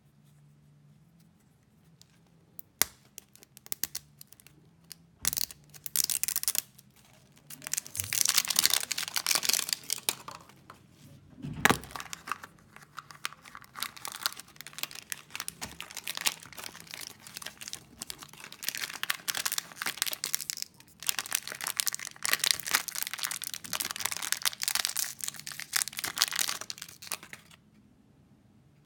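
Foil wrapper of a surprise egg being peeled and crumpled by hand, crinkling and tearing in long stretches, with a sharp crack about twelve seconds in.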